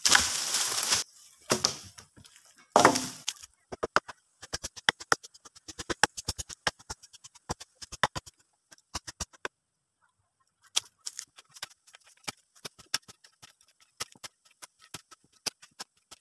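Cut wooden logs thrown down onto a log pile: three loud crashes. Then a long run of quick, sharp taps and scrapes from digging in dry soil with a small hand tool, thinning out about halfway.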